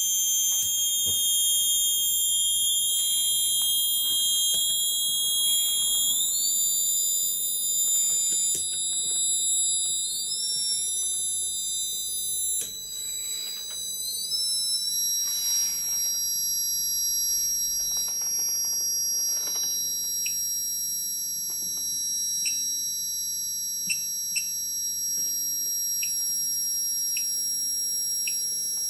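Several high-pitched steady whines from Bedini self-oscillating pulse-motor coils driving LED cooling fans, the tones climbing in pitch in steps during the first fifteen seconds or so as the fans spin up. Later, short faint chirps repeat about every second and a half.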